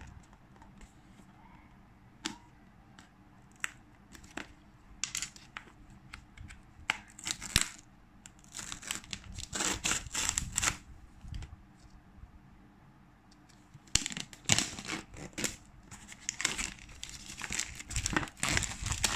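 Clear plastic shrink-wrap being torn and peeled off a cardboard product box, crinkling and crackling in irregular bursts, with scattered small clicks and taps from handling the box.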